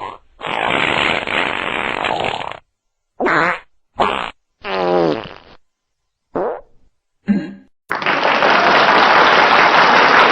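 A series of six farts of varying length: the first is long and noisy, and the later, shorter ones include pitched farts that fall in pitch. About eight seconds in, a loud steady hiss takes over.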